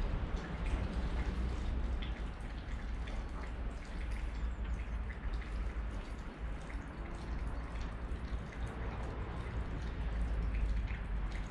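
Light rain pattering steadily, with wind rumbling on the microphone underneath.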